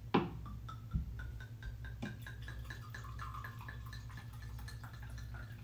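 Red wine poured from a glass bottle into a goblet: a thin, steady trickle with small ticks that keeps going for several seconds, after a few light knocks in the first two seconds.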